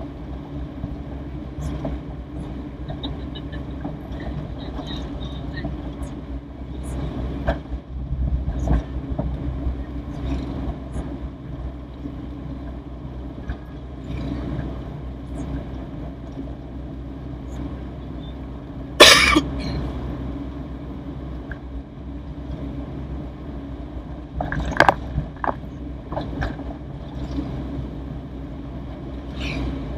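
Cabin drone of a Toyota Corolla DX on the move: its four-cylinder engine and tyre noise running steadily. A few sharp knocks break in, the loudest about two-thirds of the way through.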